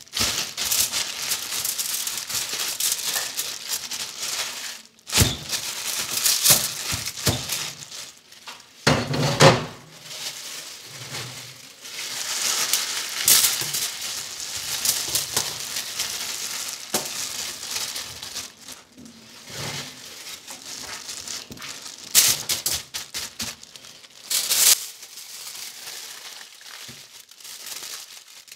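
Aluminium foil crinkling and rustling in an irregular run as gloved hands handle it and fold it over raw chicken pieces, with a few dull thumps.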